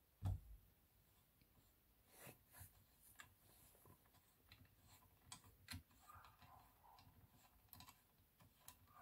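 A dull thump just after the start, then scattered faint clicks of an Allen key turning small screws into a handlebar clamp as they are tightened down.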